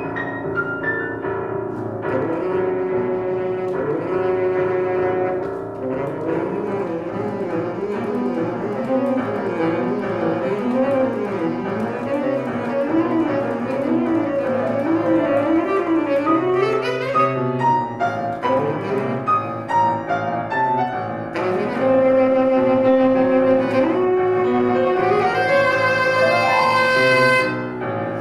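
Tenor saxophone and piano playing a classical duet live. The saxophone winds through fast running figures in the middle, then plays louder held notes over the piano, with a quick rising run near the end.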